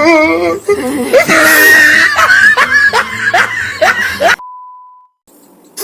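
A person laughing loudly in a run of rapid bursts, opening with a wavering high laugh. It cuts off abruptly and a short steady beep follows, then only faint hiss.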